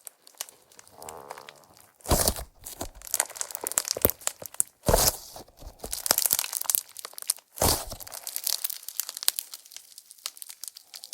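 Slime being squeezed, stretched and pressed by hand, making a dense run of crackles and small pops, with louder squishes about two, five and eight seconds in.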